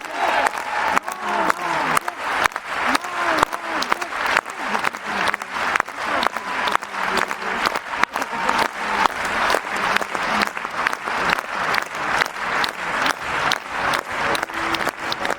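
Arena crowd applauding, the clapping falling into an even rhythm of about three claps a second, with voices calling out in the first few seconds.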